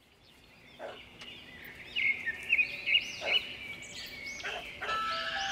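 Bird-like chirps and short whistling glides fade in from silence. Sustained musical tones join near the end as a song's intro begins.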